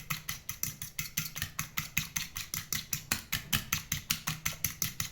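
Egg yolks being beaten by hand in a bowl: the utensil strikes the bowl in a rapid, even clicking, about eight strokes a second, stopping right at the end.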